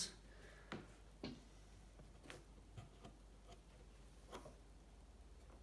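Near silence, with a few faint, short clicks at irregular intervals.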